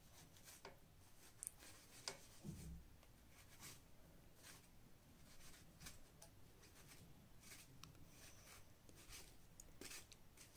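Table knife scraping stringy pulp off the inside of a pumpkin lid: faint, short scrapes at an irregular pace of about one or two a second.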